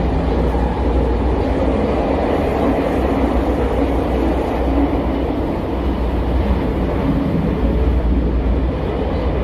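Bucharest Metro train running between stations, heard from inside the car: a steady low rumble of wheels and motors.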